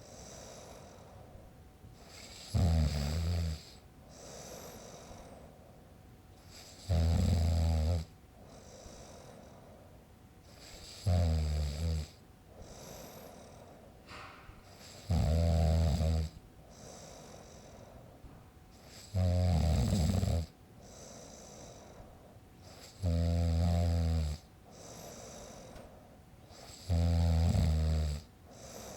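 A man snoring in a steady rhythm: a loud snore about every four seconds, seven in all, each lasting about a second, with softer breathing between them.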